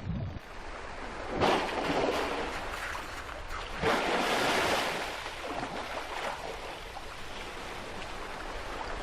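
Orcas blowing at the surface: two loud whooshing exhalations about two and a half seconds apart, over a steady wash of water.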